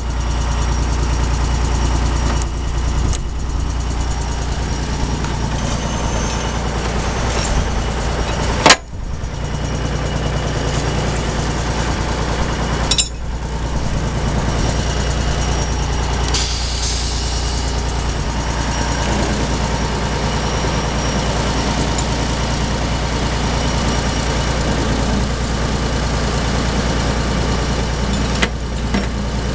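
Unimog 406's diesel engine running steadily while its Werner forestry winch's compressed-air controls, just repaired, are worked. Two sharp clacks come about 9 and 13 seconds in, and a short burst of air hiss about 16 seconds in.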